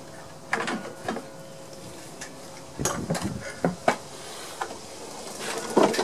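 Handling clatter: pliers clicking on a fuel-line hose clamp and the plastic fuel tank of a lawn mower knocking as it is lifted off the engine and set down, in irregular clusters of clicks and knocks, the loudest near the end.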